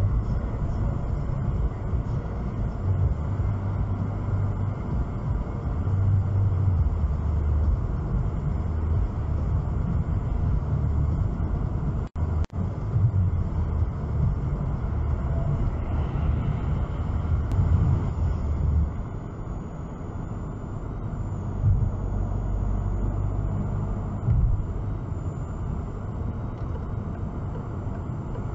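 Road noise inside a car cabin at motorway speed: a steady low rumble of tyres and engine. The sound cuts out briefly about twelve seconds in.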